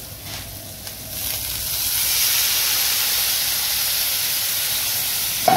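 Water poured into a hot pan of vegetables frying in butter, hissing and sizzling loudly as it flashes to steam. The hiss swells about a second in and then holds steady.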